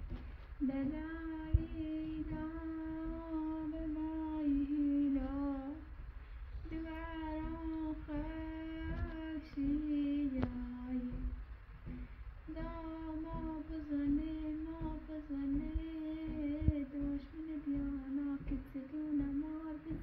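A woman singing a slow, wordless lullaby in long held notes, in three phrases with short pauses about six and eleven seconds in.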